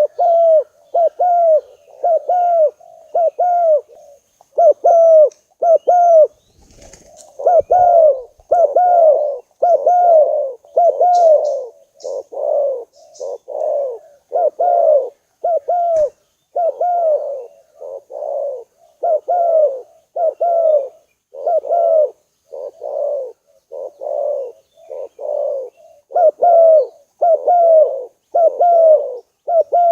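Spotted dove cooing: a long, steady series of short, falling coos at about one a second, with a brief pause about six seconds in.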